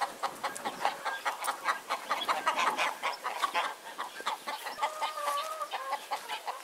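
Chickens clucking in a rapid, continuous run of short calls, with one longer drawn-out call about five seconds in.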